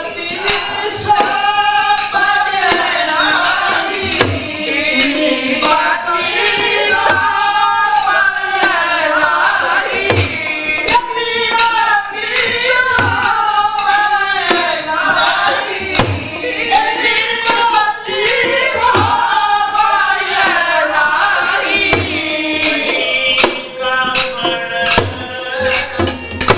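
Sikh gurbani kirtan: a group of voices singing a shabad together in long gliding phrases, over a steady beat of sharp, jingling percussion strikes.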